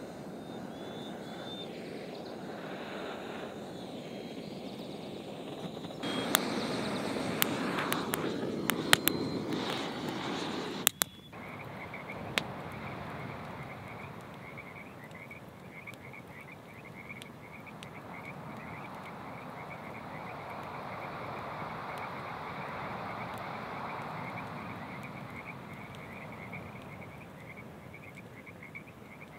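Frogs croaking in a fast run of short, high calls from about twelve seconds in, over a steady low rush of background noise. Before that comes a louder stretch with several sharp clicks and knocks, which cuts off abruptly about eleven seconds in.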